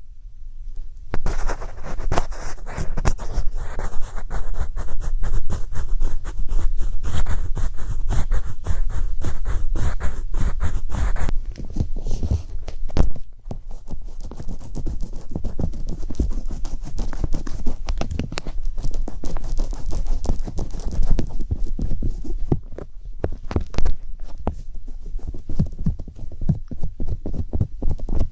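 Rapid tapping and scratching on an object held close to a microphone, many small clicks in quick succession over a low rumble; it thins out a little about halfway through.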